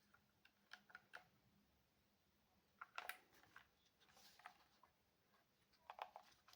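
Faint, irregular clicks of keys being pressed on a Keychron K3 Max low-profile mechanical keyboard with red switches, in small clusters about a second in, around three seconds and near the end.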